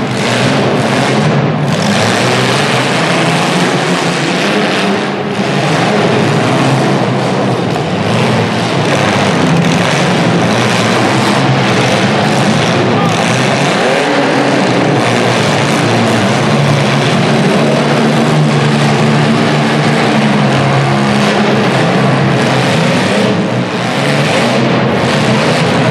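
Several demolition derby cars' engines running hard and revving together, a loud continuous din.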